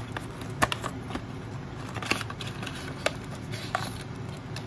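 Cardboard pin-and-card packaging being handled: light rustling with a few scattered clicks and taps as the boxes are slid and set down.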